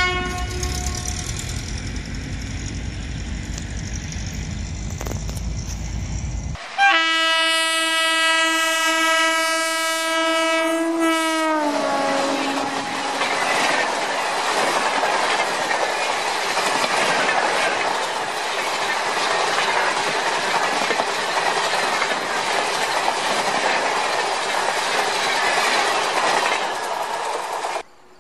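Train horn blowing: a short tail fades over a low rumble that cuts off about six and a half seconds in, then a long loud steady blast for about five seconds that drops in pitch at its end as the train passes. After the blast comes a steady clatter of wheels over the rails, clickety-clack, which stops abruptly near the end.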